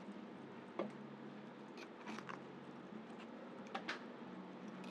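Faint, scattered clicks and crunches of an animal biting and chewing live worms, several in all, the loudest a quick pair about four seconds in.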